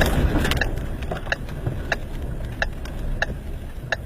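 A car's turn-signal or hazard-light relay ticking evenly inside the cabin, about three ticks every two seconds, over a low rumble of wind and vehicle noise that eases off in the first second.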